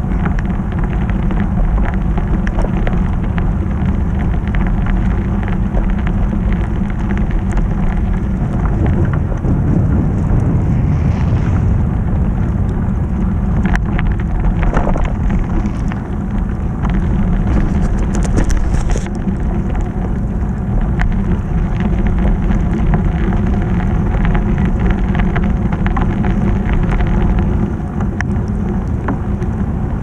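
Snowstorm wind buffeting the camera microphone while cycling: a loud, steady low rumble.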